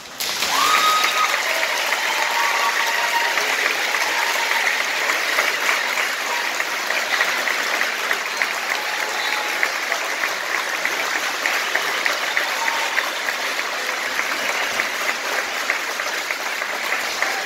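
Large audience applauding, breaking out sharply at the start and running on steadily.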